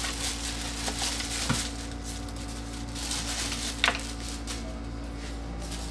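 Clear plastic bag rustling and crinkling as it is handled, with a few light clicks and knocks from the cables and desk.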